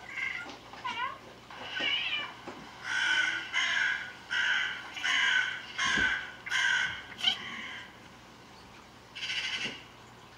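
Animal calls from a cat video playing through a smartphone's small speaker. A few short high calls that swoop in pitch come first, then a run of about eight short harsh calls, roughly two a second, and one more near the end.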